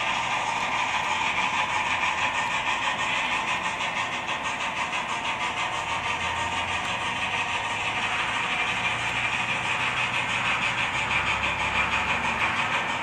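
Loksound 5 sound decoder in an HO-scale SAR GMAM Garratt model, playing steam exhaust chuffs through the model's small speakers as it runs along, in a quick, steady rhythm.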